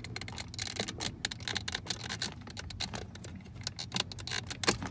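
Plastic wiring-harness connector and its cable being worked by hand, with irregular small clicks and rattles as the connector's release is pressed to unplug it; one sharper click near the end.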